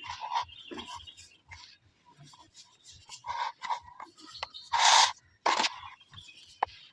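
Dry cement balls crunching and crumbling in irregular rasping bursts, the loudest about five seconds in.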